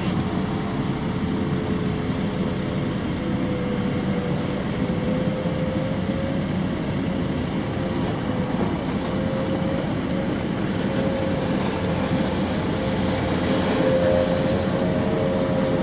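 Speedboat engine running at high speed across the water, a steady drone with a wavering whine. It swells, with a rush of spray, as the boat passes close near the end.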